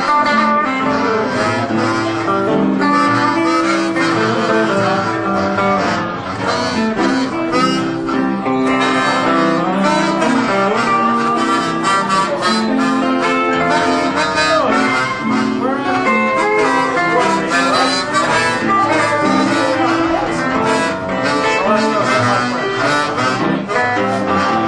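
Harmonica solo played close into a microphone, weaving a melody over a steady strummed guitar accompaniment in a country-blues song.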